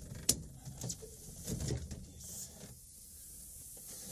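Volkswagen T3 front seat being shoved back on its rails by hand: a sharp click near the start, then a few light knocks and scrapes of the seat frame and runners.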